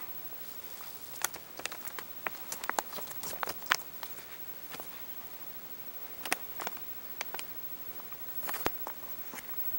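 A pet rat scrabbling right at the microphone, making irregular sharp clicks and light scratches. They come in a thick cluster over the first few seconds, then a few more scattered later.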